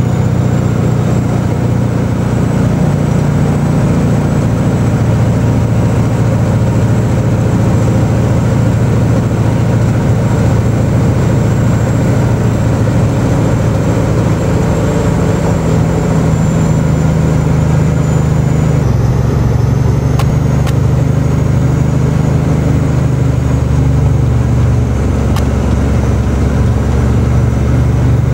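Caterpillar diesel engine of a 1990s Kenworth logging truck running steadily under way, heard from inside the cab. The engine note shifts about two-thirds of the way through.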